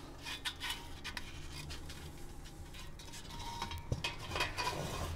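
Faint handling noises: light rustling and scattered small clicks, with a sharper click about four seconds in.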